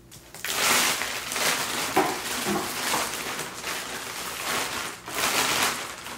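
Clear plastic packing bag crinkling and rustling as hands rummage through it, starting about half a second in.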